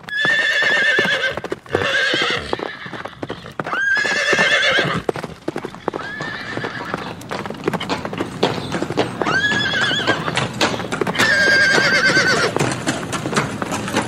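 Horses whinnying about six times, each call wavering in pitch, over a continuous run of galloping hoofbeats.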